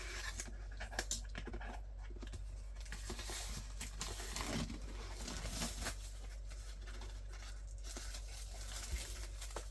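Packaging being handled and torn open, with irregular rustling and small clicks.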